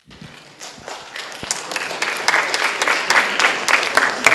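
Audience applauding, starting suddenly and growing louder over the first two seconds.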